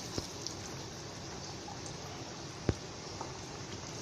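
Hot cooking oil in a kadhai, heated for deep-frying, hissing steadily with a few isolated pops, the sharpest about two and a half seconds in.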